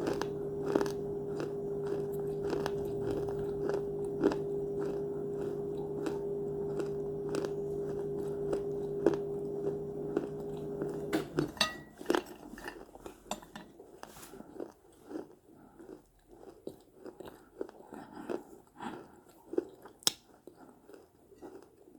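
Close-up crunching and chewing of small dried clay pots, with many sharp, brittle crunches and bites. A steady low hum runs underneath and stops about halfway through.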